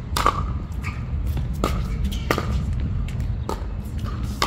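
Pickleball rally: paddles striking a hard plastic pickleball back and forth, a sharp pock about once a second, with fainter taps between as the ball bounces on the hard court. A steady low rumble runs underneath.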